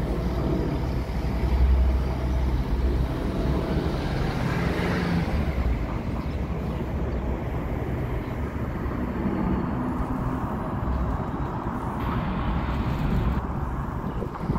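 Steady low rumble of vehicles at a tram stop, with a short hiss near the end.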